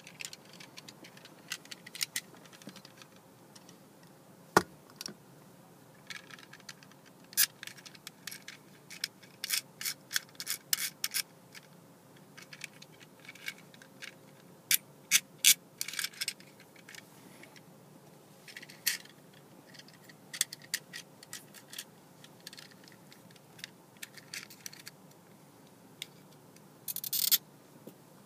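Hard plastic clicks, ticks and rattles of a suction-cup windshield mount being handled and its parts snapped together, with one sharp loud click about four and a half seconds in and a short scrape near the end.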